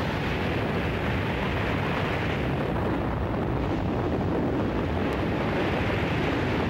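Steady, heavy roar of a storm at sea: big waves breaking amid wind, with no pauses.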